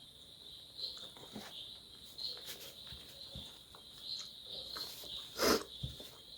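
Crickets chirping steadily in the background, a pulsing high trill, over soft eating noises from a person eating rice, with one louder click about five and a half seconds in.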